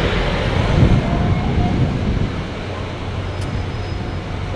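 Steady low rumble of road traffic with faint voices of passers-by, a little quieter after about two seconds.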